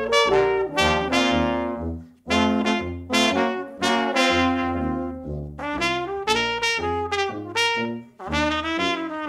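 Brass quartet of trumpet, French horn, trombone and tuba playing a jazz number, the tuba stepping out a bass line beneath the trumpet lead. The phrases break off briefly about two seconds in and again near the end.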